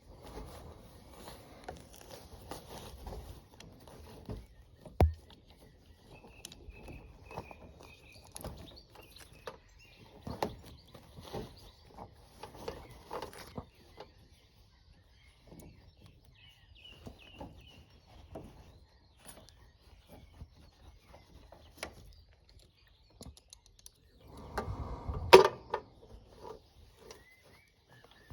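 Scattered clicks, taps and knocks of hand work with tools and metal fittings on a boiler. There is a sharp knock about five seconds in and a louder clatter of knocks near the end.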